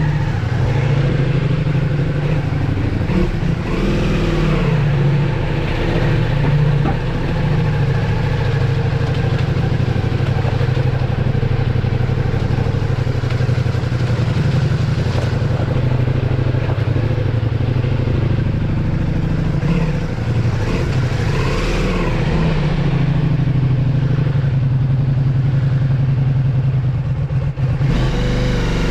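Ducati Multistrada V4 S motorcycle engine running at low speed, a steady engine note that rises briefly a few times.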